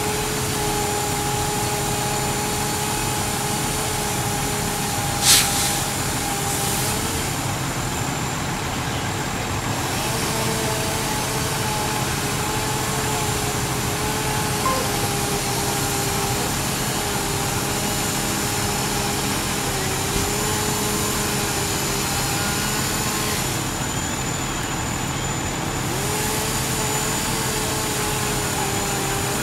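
Fire engines' engines running steadily with a constant drone and a slightly wavering hum. A short, sharp burst of noise comes about five seconds in.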